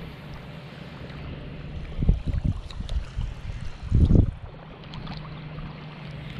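Outdoor wind noise on the microphone over a steady low background, with a few low rumbling thumps about two seconds in and again around four seconds in.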